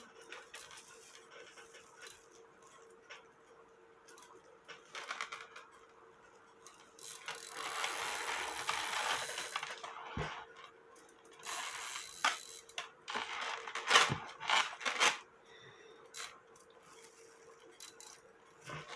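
Cuckoo clock chain clinking and rattling as it is fed onto the movement's sprocket, with scattered small metal clicks and a few longer stretches of chain links rustling, the loudest from about 7 to 15 seconds in. A faint steady hum runs underneath.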